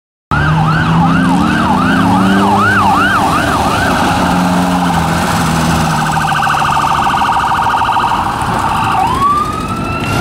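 An electronic siren starts abruptly just after the beginning, sweeping up and down about three times a second, then switches to a fast pulsing tone, and winds upward again near the end, with a vehicle engine running underneath.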